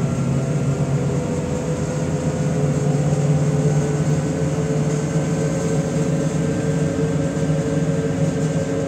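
Interior drone of a MAZ-105 city bus under way: its diesel engine running at a steady pitch with road and tyre noise, heard from inside the passenger cabin.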